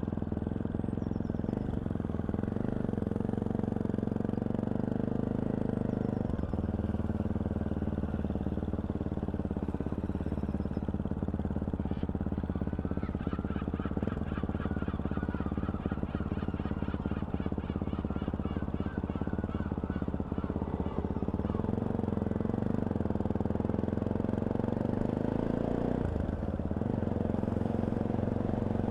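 Fantic Caballero 500's single-cylinder engine running at fairly steady revs, its pitch shifting slightly about six seconds in and again a little past twenty seconds in.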